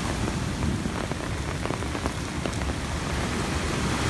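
Heavy rain falling steadily, an even hiss with scattered close drop taps.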